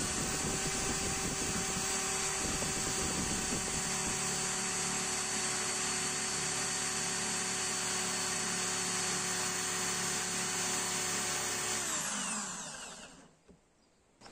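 Handheld electric drill boring a long hole into a hardwood block, running at a steady speed for about twelve seconds, then released so the motor winds down with falling pitch and stops.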